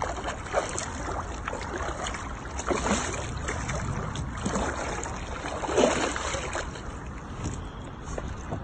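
Water splashing and swirling as a hooked wels catfish rolls and thrashes at the surface, with a louder splash about six seconds in.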